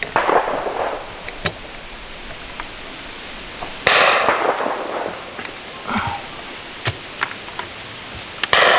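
Rifle shots from elsewhere on the range: three reports, at the start, about four seconds in and near the end, each sharp and echoing. Between them come light clicks and knocks as a rifle rest is adjusted and a rifle laid on it.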